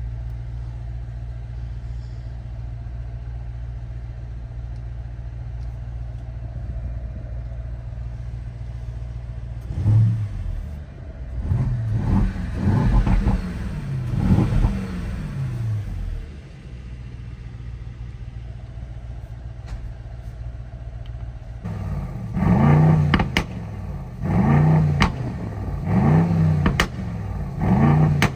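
Brabus 800 Mercedes-AMG GLS 63's 4.0-litre twin-turbocharged V8 idling steadily, then revved in a quick run of throttle blips about ten seconds in before settling back to idle. Near the end it is revved again in four short blips, each rising and falling in pitch.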